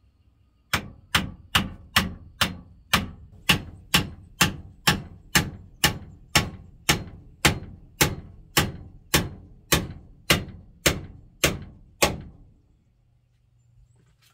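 Hammer striking a wooden door-frame post overhead: a steady run of about two dozen blows, roughly two a second, each with a short ring, stopping about twelve seconds in.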